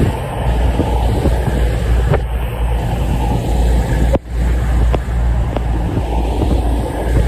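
EMR Class 222 Meridian diesel multiple unit rolling along the platform. Its underfloor diesel engines and wheels make a steady, loud low rumble.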